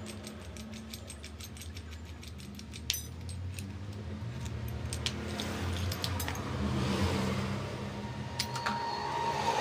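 Spanners and small steel clutch parts clinking and tapping as the clutch hub is worked on by hand: scattered light metallic clicks, a sharper one about three seconds in and a couple more near the end, over a steady low hum.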